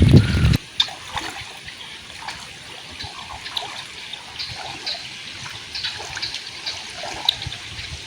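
Water trickling and splashing in a canal, with scattered small drips and splashes. A loud low rumble cuts off suddenly about half a second in.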